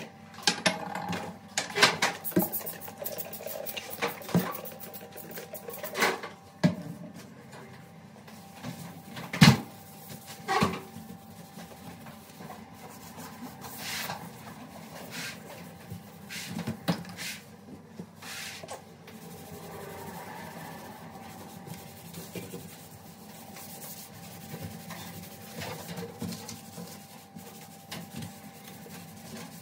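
Metal burner caps and pan supports of a glass-top gas hob clinking and knocking as they are lifted off and set down, the loudest knock about nine seconds in. Later comes soft rubbing as a sponge wipes the glass.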